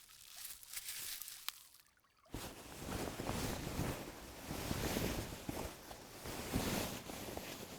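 Close cloth rustling: fabric being handled and shifted, as of a person being tucked into a tunic. A softer rustle comes first, then a brief hush about two seconds in, then a sudden dense stretch of rustling with many small crackles.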